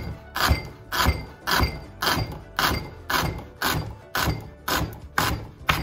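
Kitchen knife slicing raw plantain peel into thin strips on a wooden cutting board: a steady knock of the blade on the board about twice a second.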